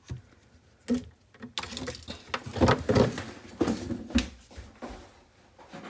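Hands uncoiling a power cord and setting it and its power adapter down on a desk: rustling cable with a few light knocks, busiest in the middle.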